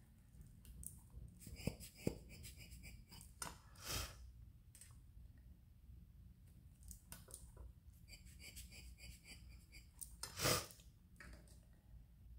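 Faint handling sounds of a felt alcohol-ink dabber tapped and pressed onto a polymer clay slab: small clicks and scratches. Two short puffs of air stand out, one about four seconds in and a louder one near the end.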